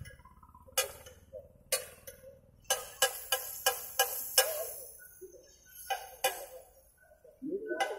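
Metal tongs clicking against a flat iron griddle and the burgers as the patties are turned and moved: about ten sharp, separate clicks, with a quick run of them from about three to four and a half seconds in.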